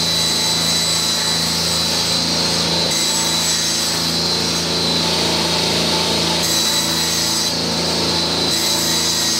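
Circular saw running steadily while cutting an OSB panel to width, with an old, dull blade.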